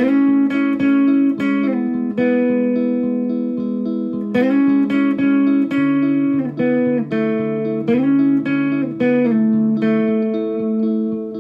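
Background music on guitar: plucked notes picked one after another over held chords.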